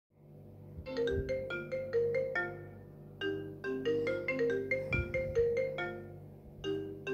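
iPhone ringtone playing: a short melody of quick marimba-like notes, the phrase starting again about every two to three seconds, over a steady low hum.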